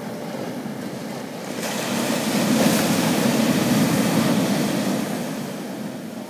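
Ocean surf breaking against a rocky shoreline: one wave's rush swells up about two seconds in, holds for a couple of seconds, then dies away.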